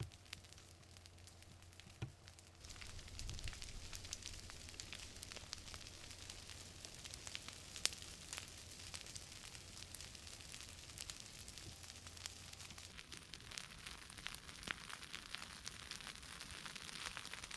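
Forest wildfire crackling: a faint hiss dotted with many small sharp pops of burning wood, one louder pop about eight seconds in. A low steady hum underneath stops about two-thirds of the way through.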